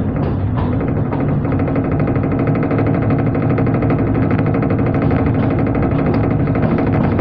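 Diesel multiple-unit (DEMU) train running steadily at speed: the drone of its diesel power car with an even, fast pulsing, over the rumble of the moving train.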